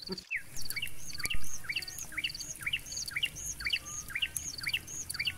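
A bird calling over and over, about twice a second, each call a short rising chirp, over a faint steady triple-ticking like insects at night. A single sharp thump about a second and a half in.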